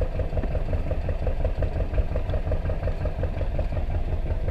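Fishing boat's engine running steadily, a low rumble with a fast, even knocking beat.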